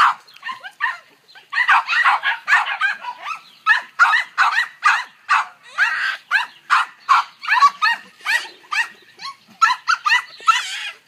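Blenheim Cavalier King Charles Spaniel yipping and whining in a rapid run of short, high-pitched barks, two or three a second, with brief pauses. The dog is begging for food.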